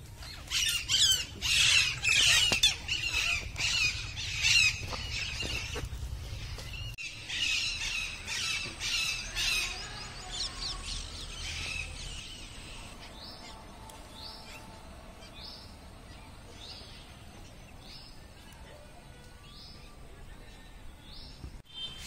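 Parrots squawking, with loud, harsh, overlapping calls for the first half, thinning out to a single short call repeated about once a second.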